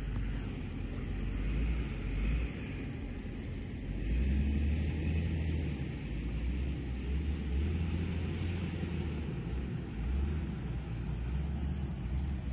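Wind buffeting the microphone: a low rumble that swells and drops in gusts.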